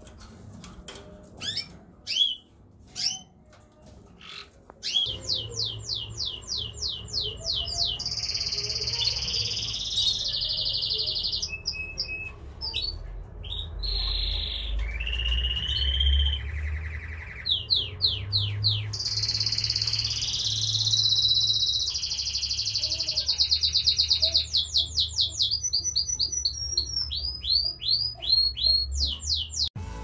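A caged finch singing: a few scattered chirps, then from about five seconds in a continuous song of fast trills and rolls of rapidly repeated notes, over a low steady hum.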